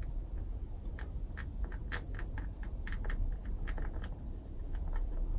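Light, irregular clicks and ticks of a small plastic Loctite bottle and a small metal fitting being handled while thread-locker is applied.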